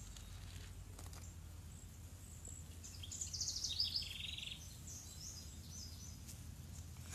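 A small bird chirping in a quick run of high notes about three seconds in, lasting about a second and a half, over a steady low hum.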